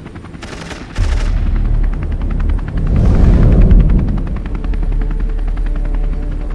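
Sound-effects soundtrack: a rapid, even pulsing over a deep rumble, like a helicopter rotor or automatic gunfire. Two short hissing bursts come about half a second and a second in.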